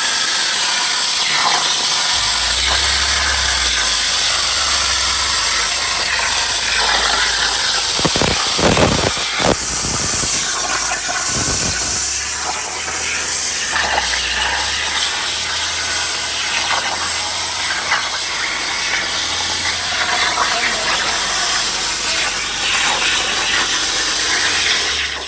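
Hypertherm Powermax 85 plasma torch cutting on a CNC table: a loud, steady hiss, with a few sharp cracks and a brief break in the hiss about a third of the way in.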